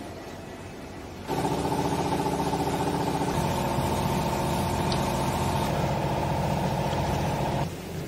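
A motor-driven machine starts abruptly about a second in, runs with a steady hum and cuts off suddenly near the end, most likely the baler's hydraulic power unit.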